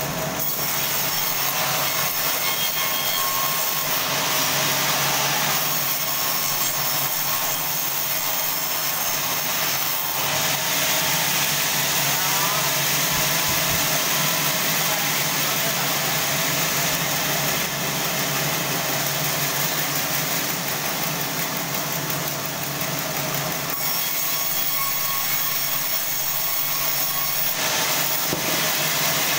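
Sawmill band saw running and sawing through a large log: a continuous loud mix of machine hum and high-pitched blade noise, changing in character a few times as the cut goes on.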